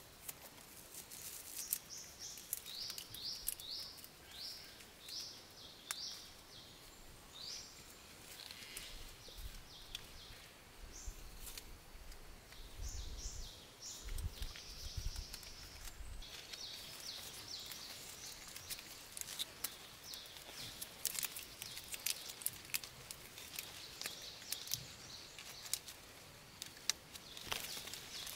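Faint forest ambience: runs of short, high chirps repeated about two to three times a second, from a calling bird or insect, with scattered sharp clicks and scrapes.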